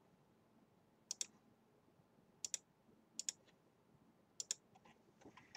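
Computer mouse button clicked about four times, roughly once a second, each a faint quick press-and-release double tick, placing the corner points of lines being drawn.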